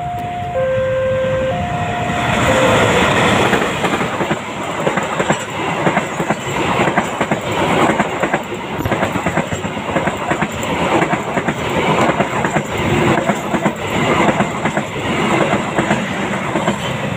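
Diesel-hauled intercity passenger train arriving and passing close by at speed. Its noise rises sharply about two seconds in. After that comes a steady rhythmic clatter of the coaches' wheels over the rail joints as the carriages go by.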